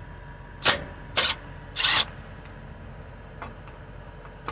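Three short scraping, clattering sounds of hand work on the fuel pump control module and its mounting at the fuel tank, the last one the longest, over a steady low hum.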